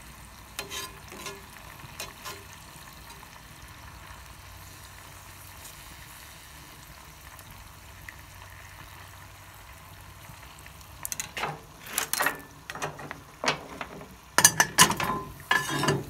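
Beaver meat frying in hot oil in a cast iron skillet, a steady sizzle with a few light clicks. In the last five seconds, loud metal clanks and scrapes as the wood stove's cast-iron lid is lifted off over the firebox.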